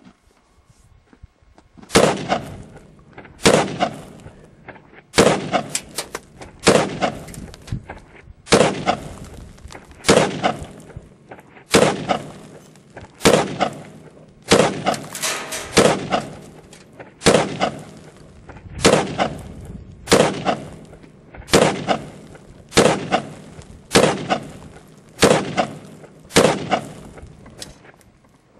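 AK-47 rifle firing 7.62×39 mm rounds as a string of about twenty single shots, roughly one every second and a half, each shot loud and sharp with a short decaying echo.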